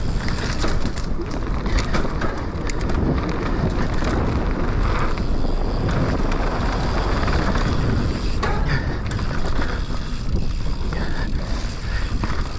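Enduro mountain bike riding fast down a dirt trail: wind buffeting the microphone over the rattle of the bike and tyres, with sharp knocks from bumps.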